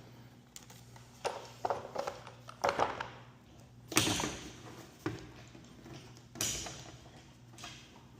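A series of about eight separate knocks and clanks from garage door hardware being worked on and handled, with a steady low hum underneath.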